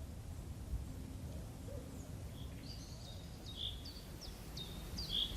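A small bird calling: short, high notes that drop in pitch, repeated about twice a second, starting about halfway through, over a steady low rumble of outdoor background noise.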